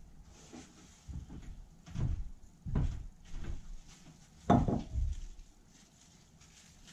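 Footsteps on a wooden floor, then a bowl set down on a wooden table with a loud knock and a brief ring about four and a half seconds in.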